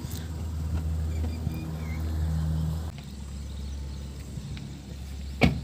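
Petrol hatchback engine idling close by, a steady low hum that drops down and smooths out about three seconds in. A single sharp knock sounds near the end.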